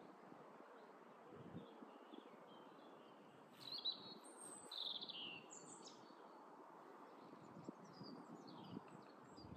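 Faint birdsong: a few short chirps and twitters from small birds, clustered around the middle, over a quiet steady background hiss.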